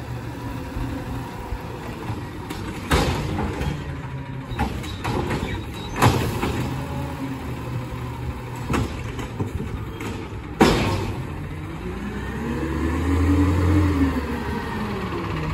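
Peterbilt 520 garbage truck's diesel engine idling, with several sharp bangs as a recycling cart is emptied. Near the end the engine revs up as the truck pulls forward, its pitch rising and then falling.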